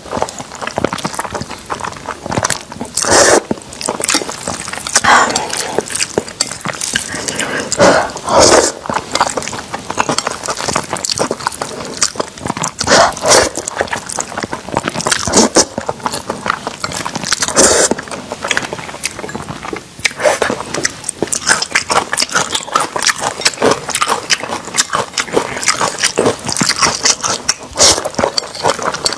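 A person slurping and chewing glass noodles in thick sesame-paste sauce, in irregular wet bursts every second or two.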